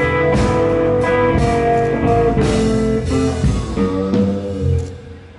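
A live blues band plays a shuffle, and the music dies away near the end.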